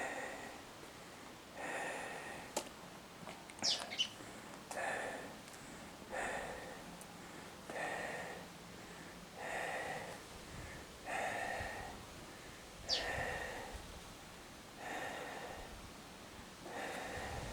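A person breathing close to the microphone, about one breath every second and a half, with a couple of brief high squeaks.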